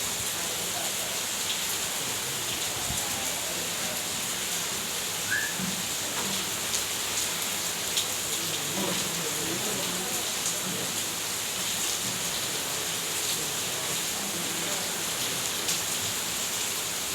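Heavy rain falling steadily, a dense, even hiss of rain pouring onto surfaces.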